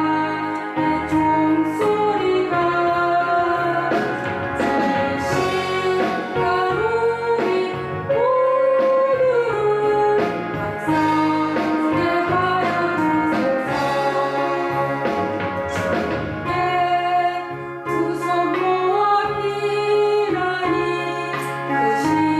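A woman singing a Korean gospel song with instrumental accompaniment, the melody held in long, wavering notes.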